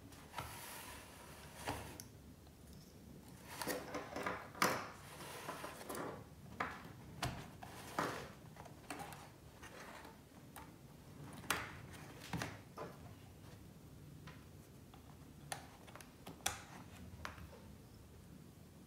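Hands plugging cables and connectors back into a Jetson Nano developer board on a wooden table: faint, irregular clicks and small knocks, with brief light rustling between them.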